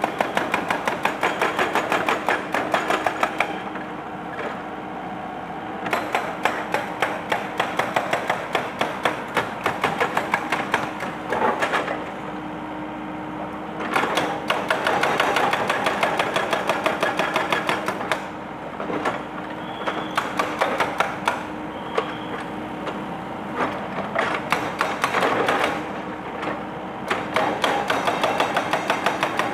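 Excavator-mounted hydraulic breaker hammering a concrete monument in bursts of rapid strikes, several a second, with short pauses between bursts, over a steady engine hum.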